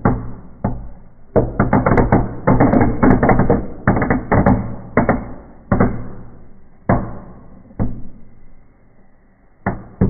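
Firecrackers going off inside a closed fireplace firebox: dense clusters of rapid bangs and crackles. After about six seconds they thin to single bangs, fade to a lull, and one more bang comes near the end.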